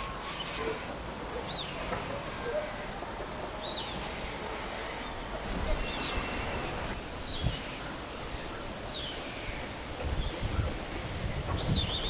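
Summer outdoor ambience: a steady, high-pitched insect trill, which stops about halfway through. A small bird gives short falling call notes every second or two.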